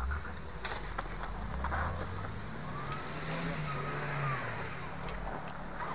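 Off-road SUV engine revving under load on a snowy course. The engine note rises about a second and a half in, climbs higher and holds for a second or so past the middle, then eases off.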